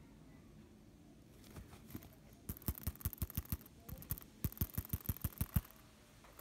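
Fingers tapping the top 'bell button' of a vintage trucker cap, a button that sounds when it is knocked. Two quick runs of about eight to ten taps each, several a second, with a short pause between them.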